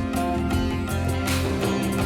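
Background music with plucked acoustic guitar.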